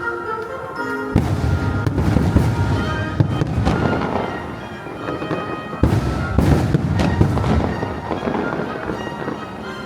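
Fireworks bursting one after another, several booms and crackles, over the fireworks show's music soundtrack.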